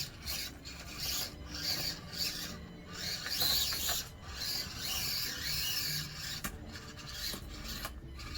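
SCX24 Deadbolt micro RC crawler's small electric motor and drivetrain whirring with a rasping sound in stop-and-start bursts as the truck is driven over the course.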